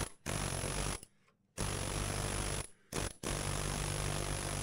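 Pneumatic air chisel hammering against seized plastic slides on a snowmobile skid's rails, trying to break them free. It runs in short bursts of about a second, then runs on steadily from about three seconds in.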